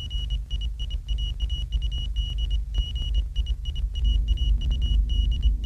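Background noise of a 1937 film soundtrack: a low steady rumble that grows louder about four seconds in, under a thin high whine that keeps cutting in and out.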